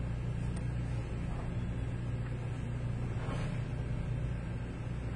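Steady low hum of background noise. The powered-on laptop's cooling fan makes no sound: it is not spinning, the failure that makes the laptop shut itself down to protect its circuitry.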